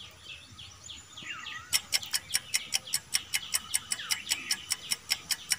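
Countdown timer sound effect: a fast, even ticking, about five sharp ticks a second, starting about two seconds in. Before it come faint, short bird-like chirps.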